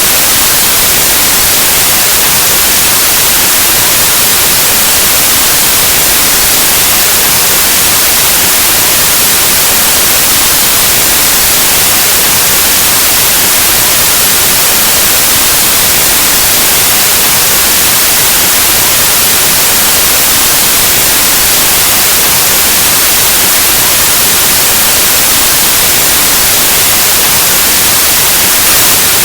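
Steady, loud white noise: an even, unchanging hiss like analog TV or radio static.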